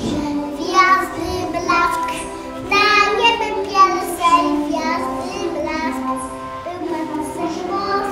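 A young boy singing a Christmas carol solo, holding each note briefly before moving to the next.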